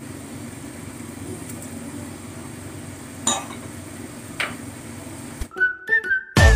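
Coconut-milk curry sauce simmering and bubbling in a pan of fish steaks, a steady frying-pan noise with two light knocks a second or so apart. Near the end it cuts to short electronic sound effects with held tones and the start of dance music.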